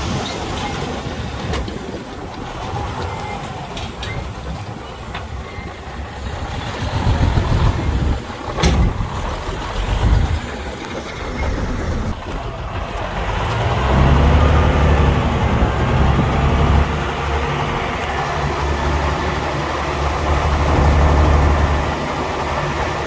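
Heavy diesel earthmoving machinery running, its engine rumble growing louder and steadier about two-thirds of the way through, with one sharp knock a little before the middle.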